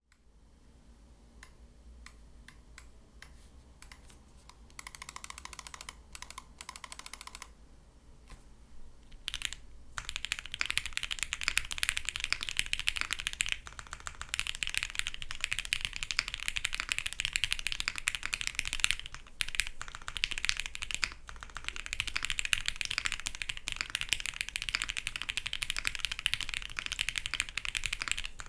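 Typing on a gasket-mounted Table Gadget 67 custom mechanical keyboard with Gateron Yellow linear switches lubed with Krytox 205g0, on a PC plate with case and plate foam. It starts with separate, spaced keystrokes, then from about ten seconds in becomes fast, continuous typing with a few short pauses.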